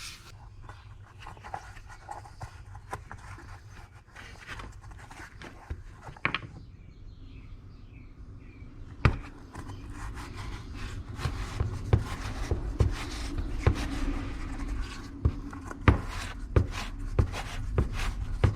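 Hands rubbing and handling a scooter's rubber tyre and inner tube while feeling for punctures, with scattered clicks and taps. It goes quieter for a couple of seconds past the middle, then the clicks come more often over a low hum.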